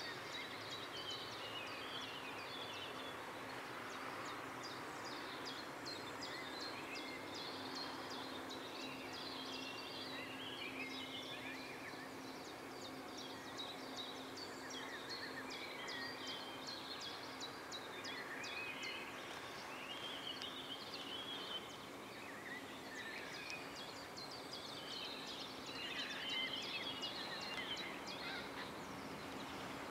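Outdoor ambience of small birds chirping and trilling steadily, over a faint steady low hum.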